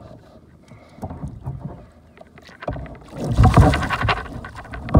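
Water sloshing and splashing around a kayak: faint at first with scattered small clicks, then loud splashing from about three seconds in.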